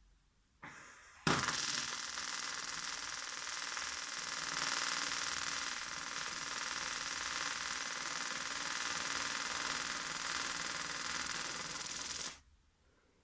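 TIG (argon) welding arc on a scooter's thin aluminium variator cover, laying a tack weld. After a short high hiss about half a second in, the arc strikes just over a second in and runs as a steady hiss with a faint buzz for about eleven seconds, then cuts off abruptly.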